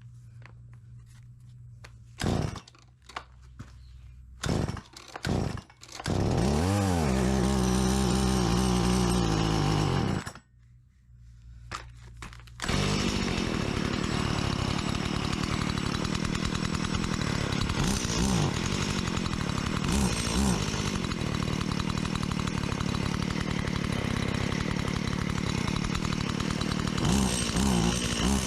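STIHL 017 two-stroke chainsaw, freshly rebuilt with its carburettor not yet adjusted, being pull-started. A few short pulls come first, then the engine catches about six seconds in, revs and runs for a few seconds before dying. After one more pull it starts again and keeps running steadily with a few short revs.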